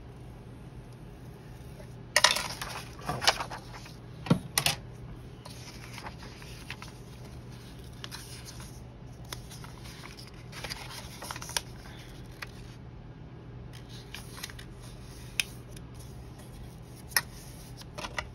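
Paper and small craft tools being handled on a desk: a cluster of clicks, knocks and rustles a couple of seconds in, then a few single clicks spaced well apart.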